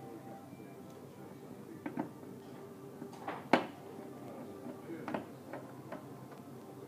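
Hand screwdriver removing screws from the underside of an induction hob's red metal casing: scattered clicks and knocks, a pair of taps about two seconds in, the loudest single knock about three and a half seconds in, and another pair about five seconds in.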